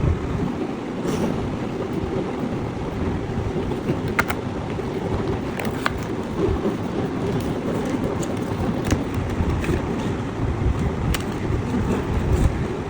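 A steady low rumbling noise, like wind buffeting the microphone, with a few sharp clicks scattered through it.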